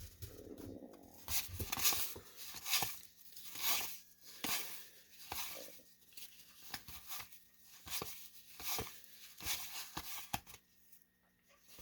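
1991 Topps baseball cards being slid and flipped one past another by hand, a string of short papery swishes coming irregularly, one or two a second.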